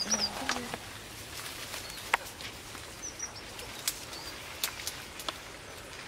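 Red avadavats (strawberry finches) giving thin, high chirps, a couple right at the start and a few more about three seconds in, with several short, sharp ticks scattered between.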